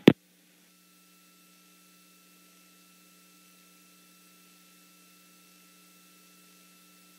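Near silence: a faint steady electronic hum of a few held tones under low hiss.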